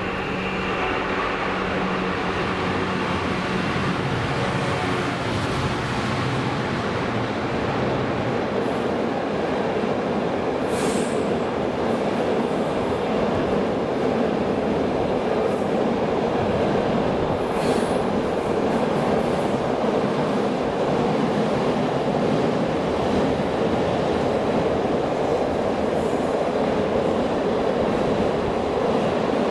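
Class 66 diesel-electric freight locomotive, with its twelve-cylinder two-stroke EMD engine, passing at the start; its engine note fades after the first several seconds. A long rake of intermodal container wagons then rolls steadily by with continuous wheel-on-rail noise.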